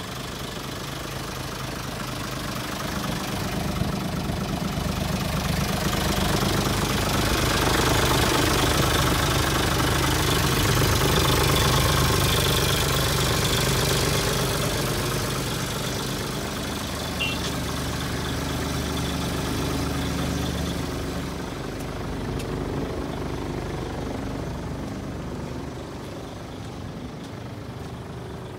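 Hino Ranger truck's diesel engine idling steadily. It grows louder toward the middle, as the microphone passes close along the chassis, and falls back near the end.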